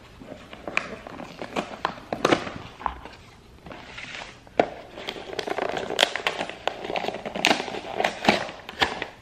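Cardboard takeout boxes being opened and handled: a run of sharp crackles, taps and rustles of cardboard and paper, busier in the second half.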